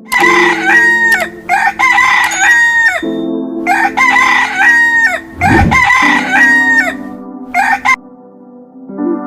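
Rooster crowing again and again in two long runs, with a short call near the end, over steady background music.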